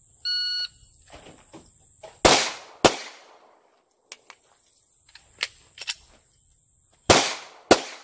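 Shot timer's start beep, then a handgun fired in pairs: two shots about half a second apart some two seconds in, and two more near the end, each with a ringing echo. Fainter sharp clicks and knocks come between the pairs.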